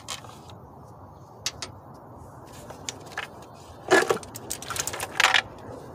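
Clunks and rattles of an intake manifold with its throttle body being worked loose and lifted from a Chevy Cobalt's 2.2 L engine, with light clicks between. Two louder clatters come about four and five seconds in.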